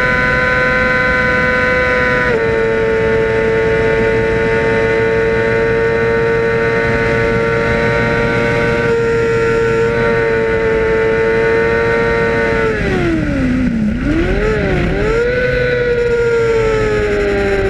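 Racing motorcycle engine held at high, steady revs, with a small dip at a gear change about two seconds in. About thirteen seconds in the revs fall sharply under braking and downshifting, with a couple of quick throttle blips, then climb again and ease off slowly toward the end.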